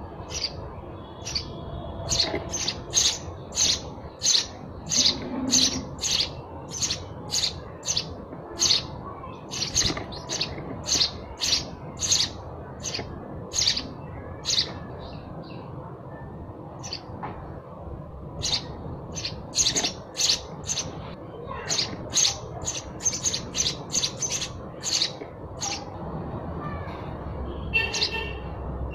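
Sparrow chirping: short, sharp chirps repeated about twice a second in two long runs, with a pause of a few seconds in the middle.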